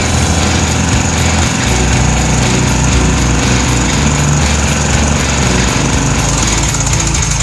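Bunton commercial walk-behind mower's small gasoline engine running steadily and loudly on its new carburetor, on a test run after the carburetor swap.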